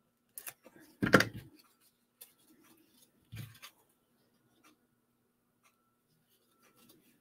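Cardstock being handled and pressed together by hand on a craft mat: a sharp knock about a second in, a duller thump a little after three seconds, then faint paper rustles and ticks.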